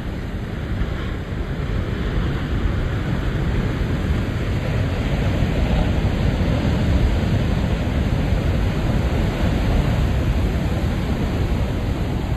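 Ocean surf at high tide breaking and washing over a rocky tide-pool shore: a steady rush of water that swells louder a couple of seconds in and stays up.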